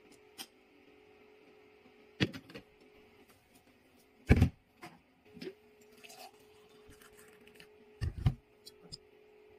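Blender pitcher and glass being handled on a kitchen counter: a few sudden knocks and clunks, the loudest and deepest about halfway through and a double knock near the end, over a faint steady electrical hum.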